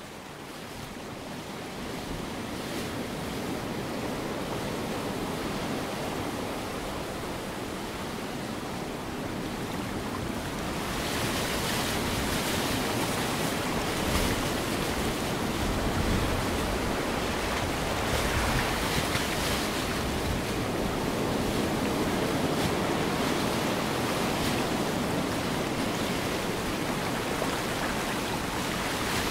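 Ocean surf recording: a steady wash of breaking waves that fades up over the first seconds, grows louder about eleven seconds in, and swells and falls slowly as waves come in.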